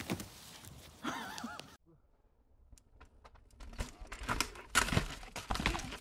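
A person's short cry about a second in, then a run of knocks and crashes from about four seconds in as a mountain bike and its rider tumble onto rocks.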